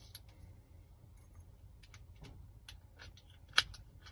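Scattered small clicks of a newly cut key working in a lock cylinder, with one sharper click about three and a half seconds in.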